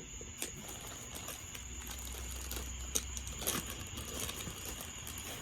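Beer cans and packing being handled in a cardboard box: scattered light rustles and clicks. Behind them, a steady high chirring of crickets.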